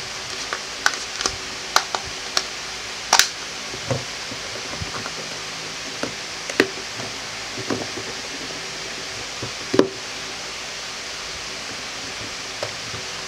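Irregular light clicks and knocks of a plastic Gary Fong Collapsible Lightsphere flash diffuser being handled, its collapsible body squeezed and its dome cap fitted. The loudest come about three seconds in and again near ten seconds, over a steady hiss.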